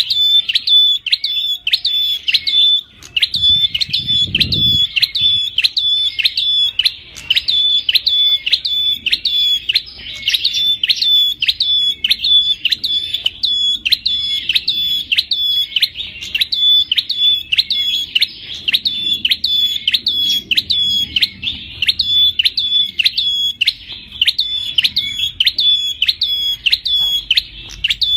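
Prenjak kepala merah (a small Javanese warbler-type songbird) calling over and over, a sharp high note repeated at a steady pace of about two a second. A brief low rumble sounds about four seconds in.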